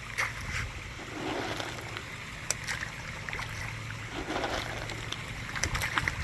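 Water splashing and sloshing in a koi pond, with a few sharp splashes, over the steady rush of a waterfall.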